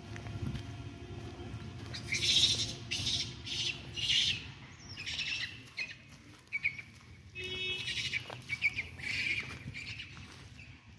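Birds calling in short, repeated bursts over a low, steady background rumble.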